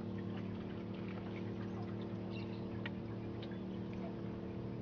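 A steady low engine hum, even in pitch throughout, with a few faint scattered ticks over it.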